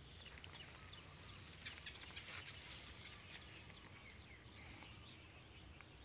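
Near silence with faint birds chirping: many short, high calls.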